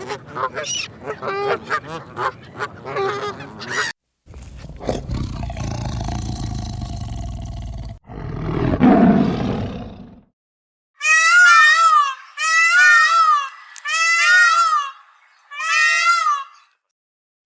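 A run of farm animal calls from separate clips: about four seconds of rapid geese-like honking, then a noisy low rumbling call that swells and fades, then four long calls, each rising and falling in pitch.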